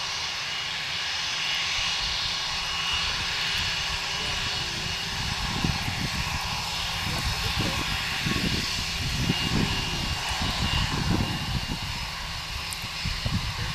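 Twin jet engines of a TAM Airbus A319 running at low taxi power as the airliner rolls along the runway: a steady jet whine with a thin high whistle. Irregular low buffeting joins from about halfway through.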